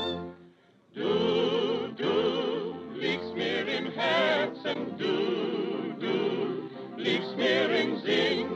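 Recorded music with a wavering, vibrato melody line over accompaniment. It falls almost silent for about a second at the start, then resumes.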